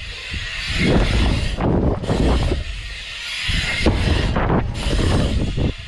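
Wind buffeting a helmet-mounted action-camera microphone while a BMX bike rolls fast over wooden ramps and concrete. The tyre rumble swells and drops twice, with one sharp knock a little after halfway.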